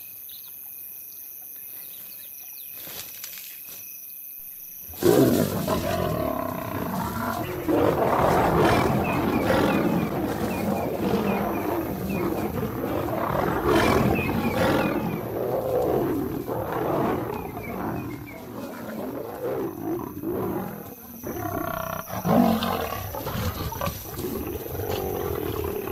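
After about five quiet seconds with a steady high trill, lions suddenly break into snarling and roaring, sustained loud and rough to the end: a fight in which a male lion charges at lionesses.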